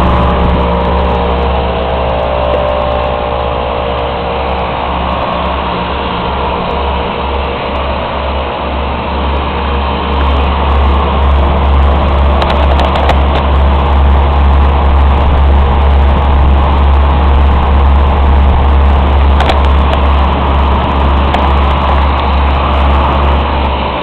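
Nordyne central air-conditioning condensing unit running: its four-blade condenser fan blowing a steady rush of air over a deep, even hum. The sound grows a little louder about ten seconds in.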